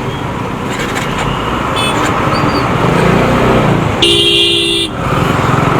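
Busy road traffic with steady engine and road noise. A vehicle horn gives a short toot about two seconds in, then honks once, loud, for almost a second about four seconds in.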